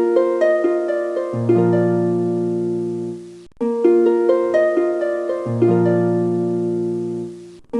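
Intro music: a short plucked-string melody, with lower notes coming in beneath it, played as a loop that breaks off briefly and starts over about every four seconds.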